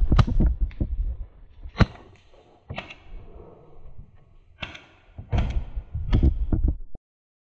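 Paintball gunfire at close range: sharp pops and thunks of markers firing and balls hitting the bunker, in irregular bursts with a dense run in the second half, over low rumble from the microphone being jostled. The sound cuts off suddenly near the end.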